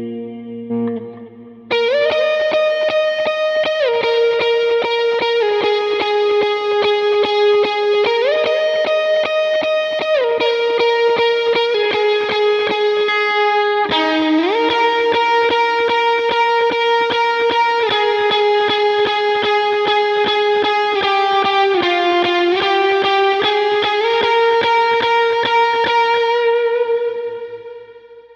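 Gretsch 5422 electric guitar through a modelled Vox-style amp with drive and delay, playing a lead melody of long sustained notes that slide from one pitch to the next. It fades out near the end.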